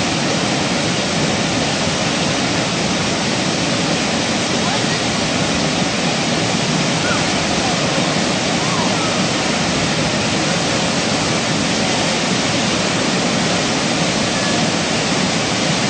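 Waterfall on a sandstone gorge creek running hard with high water: a steady, unbroken rush of falling and splashing water.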